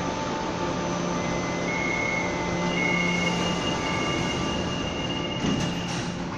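A Kaohsiung MRT metro train pulls away from the platform, its running noise steady under a low hum. A high, steady whine comes in about a second in. A short knock sounds near the end as the last car slides past, and the sound eases off slightly.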